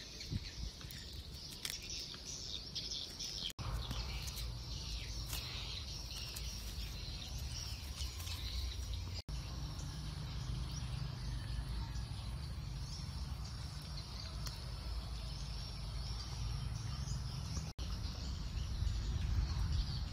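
Outdoor ambience: a steady low rumble with faint high chirping above it, broken by three brief dropouts to silence.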